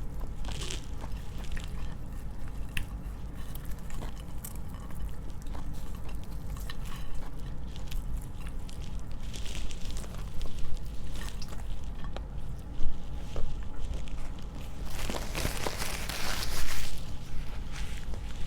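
Close-miked biting and chewing of crispy fried chicken, with many small crunches and crackles and a louder, longer crackly spell near the end.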